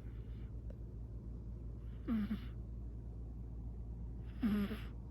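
A sleeping British Shorthair cat snoring: short nasal snores about every two seconds, each dipping slightly in pitch, with a faint one near the start and two clearer ones. A steady low hum runs underneath.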